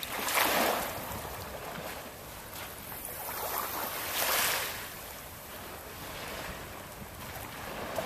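Small waves washing up on a sandy shore, the surf hiss swelling twice, about half a second in and again about four seconds in.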